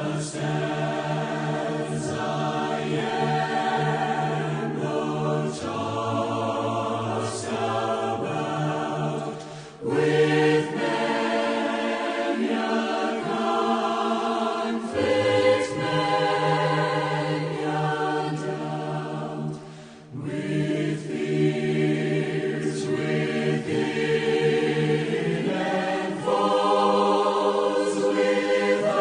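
Choir singing in sustained chords, with a brief break about ten seconds in and another about twenty seconds in.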